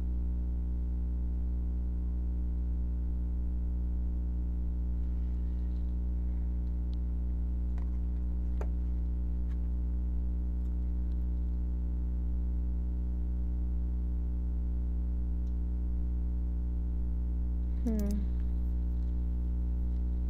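Steady electrical hum with a stack of overtones, unchanging throughout, with a few faint clicks and a brief murmur of a voice near the end.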